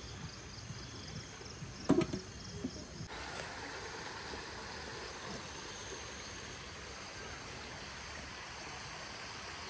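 Insects chirping in quick repeated pulses over a steady hiss of outdoor ambience, with one sharp knock about two seconds in. About three seconds in the background changes abruptly to an even hiss with fainter insect calls.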